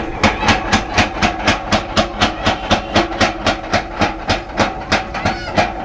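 A 45 kg power hammer forging a red-hot steel bar: the ram strikes in a steady rhythm of about four blows a second over a steady machine hum.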